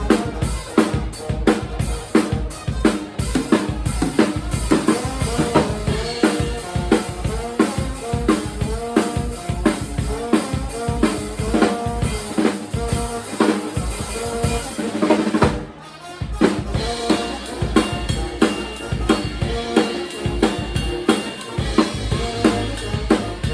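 Live band playing, driven by a drum kit with kick, snare and rimshots under repeated pitched instrumental lines. About two-thirds of the way through there is a brief break before the full band comes back in.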